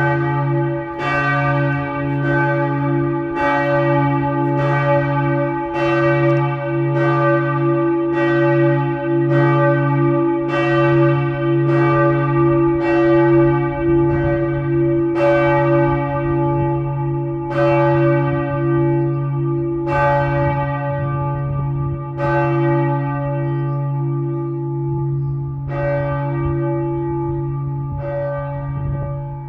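Church bells ringing in a tower: strikes about once a second over a steady low hum, the strikes coming further apart in the last few seconds as the peal slows.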